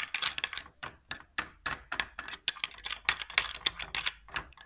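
Metal spoon stirring a thick paste in a small glass bowl, clicking and scraping against the glass in rapid, irregular strokes.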